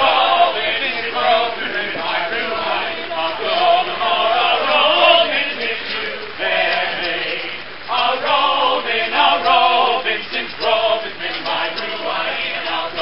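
A group of men singing a folk song together in chorus, with a short break between phrases about two-thirds of the way through.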